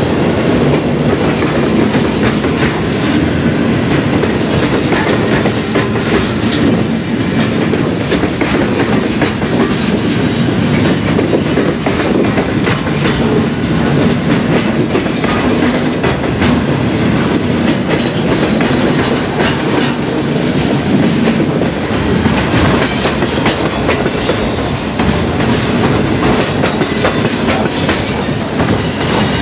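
Alaska Railroad freight train of open-top hopper cars rolling past close by: a steady, loud run of steel wheels on rail with many quick clicks as the wheels cross rail joints. Near the end the wheels clatter over a track switch.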